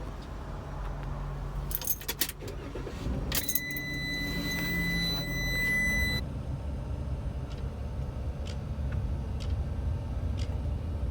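Road noise inside a moving van: a steady low rumble, with a short clatter of clicks about two seconds in and a steady high beep lasting about three seconds in the middle.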